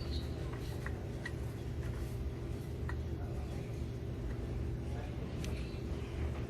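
The engine of a 2021 Chevrolet Tahoe / GMC Yukon running steadily, with a few faint, irregularly spaced ticks over the drone. The SUV has a misfire code stored and a ticking noise.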